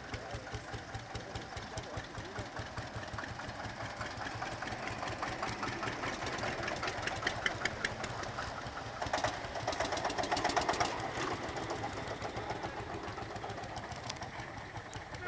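Vintage tractor engines running as the tractors drive slowly past, a steady rhythmic knocking beat that grows louder about nine seconds in as one passes close.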